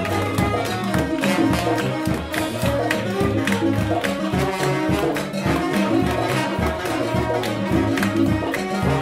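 Live brass band playing a funk tune: a sousaphone bass line under saxophones, trombones and trumpets, with a steady beat.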